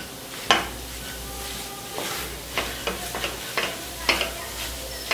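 Wooden spatula scraping and tapping against a black kadhai in irregular strokes while stirring and breaking up lumps of milk powder roasting in ghee, with a soft sizzle from milk just added to the hot mixture.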